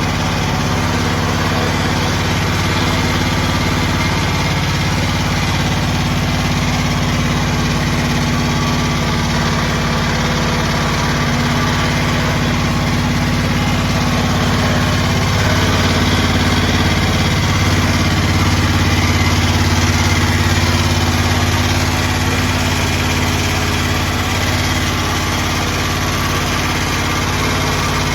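Small engine of a homemade mini skid steer running steadily, growing a little louder for several seconds around the middle before settling back.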